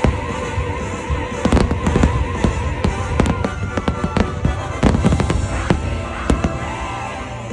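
Fireworks bursting in rapid, irregular bangs over the show's music soundtrack, which carries a wavering high tone.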